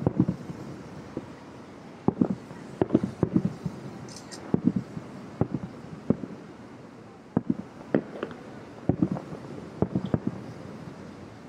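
Aerial fireworks shells bursting about two miles away: a steady series of low, dull booms, often in quick pairs, each trailing off in a short echo.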